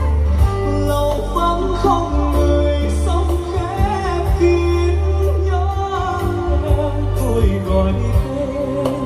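Live music played loud over a concert sound system: a singer's voice with band backing and heavy bass.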